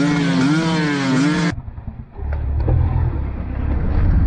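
A loud pitched tone wavering up and down, cut off abruptly about a second and a half in, then the low, steady rumble of a vehicle engine running.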